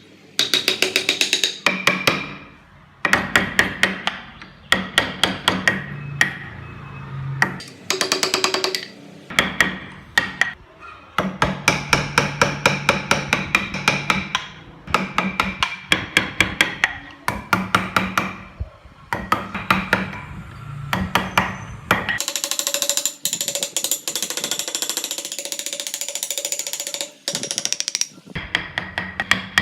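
Rapid hammer blows in runs of a second or two, several strikes a second, with short pauses between the runs. For several seconds near the end the blows give way to a steadier noise with ringing tones.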